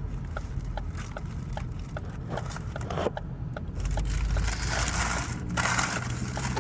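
A car's indicator relay ticking evenly about two and a half times a second over the low hum of the idling engine. Near the end come close chewing and crunching sounds from a mouthful of sub sandwich.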